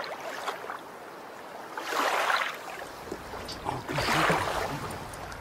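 Water sloshing and lapping against a small kayak's hull, with two rushing swells about two seconds apart.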